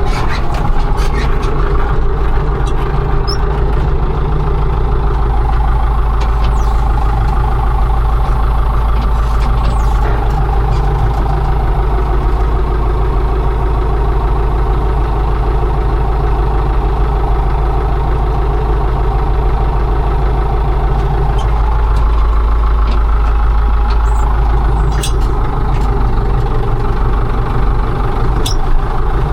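Heavy diesel engine of harvest machinery, a combine harvester or tractor, running steadily and loudly, heard close up.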